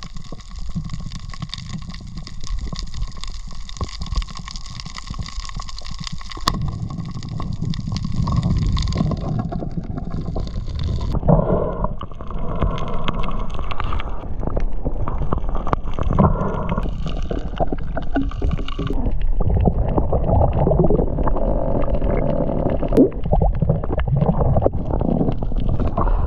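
Muffled underwater noise picked up through a submerged camera's waterproof housing: water rushing, gurgling and rumbling as the diver moves with the speargun.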